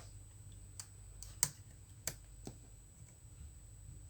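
Light clicks and taps of small laptop parts and a screwdriver being handled while the cooling fan is taken out of the laptop: four short, sharp clicks, the loudest about a second and a half in.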